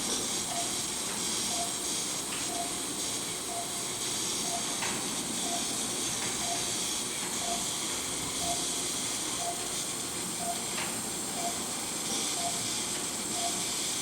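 Operating-room patient monitor beeping about once a second in time with the patient's pulse, over a steady hiss.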